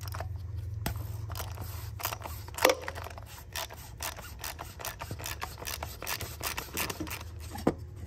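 Hand ratchet clicking in quick, irregular runs while loosening a plastic oil filter cap with a cap socket, over a steady low hum.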